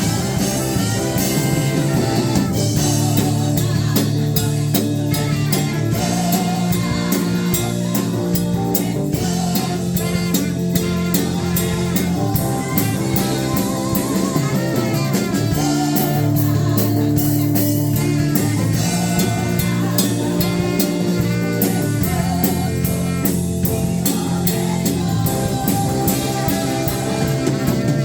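A worship band playing a praise song, with a drum kit keeping a steady beat under guitar and singing.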